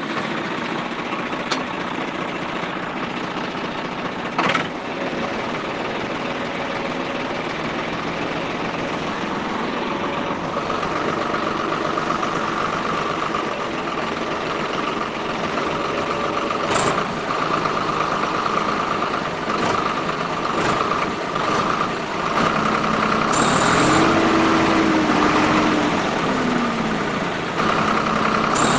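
Small electric DC motor of a homemade model tractor running continuously, driving the wheels through its gear train with a steady high whine. In the last few seconds a lower hum shifts up and down in pitch.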